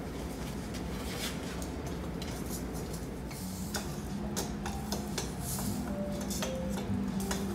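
Clinks and taps of dishes and metal utensils over steady background noise, with music coming in about halfway through.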